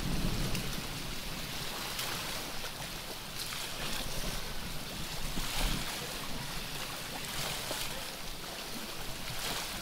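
Harbour water lapping and sloshing, with gusts of wind on the microphone at the start and again near the end.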